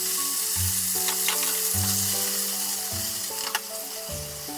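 Lotus root slices sizzling in a frying pan as leftover cooking sauce bubbles and cooks down around them, with a few light scrapes of the pan. Background music with a bass line plays underneath.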